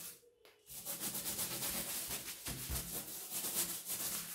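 A rubber balloon rubbed quickly back and forth against long hair, a fast run of rubbing strokes that starts about a second in. The rubbing charges the hair with static electricity.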